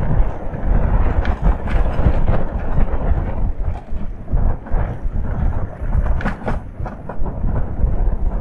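Wind buffeting the camera microphone on a moving electric bike, heard as a loud, uneven low rumble, with scattered knocks and rattles as the bike rides over the towpath's concrete paving slabs.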